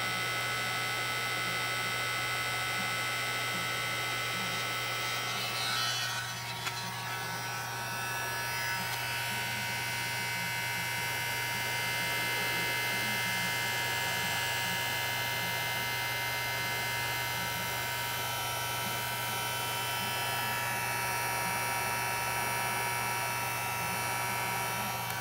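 Electric heat gun running steadily, its fan motor humming and whining over the rush of hot air. It is melting the solder and shrinking the sealant sleeve of a solder-seal butt connector on a spliced injector harness wire; the air sound shifts briefly about six seconds in.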